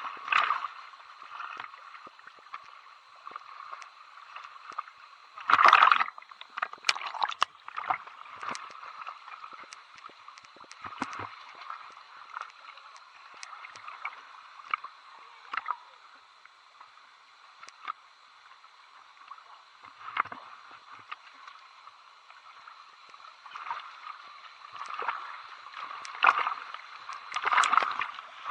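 Water gurgling and splashing close around the microphone, with scattered small clicks and louder splashes about six seconds in and again near the end.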